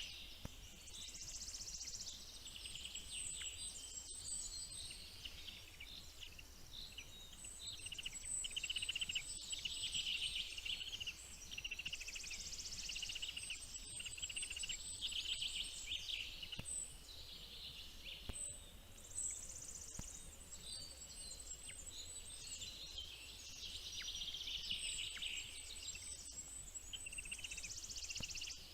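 Dense, high-pitched bird chirping: many quick calls overlapping, swelling and easing in waves every second or two.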